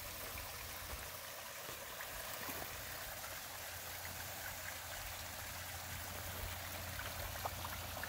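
Water from a pondless waterfall running over rocks: a steady, fairly faint trickling rush.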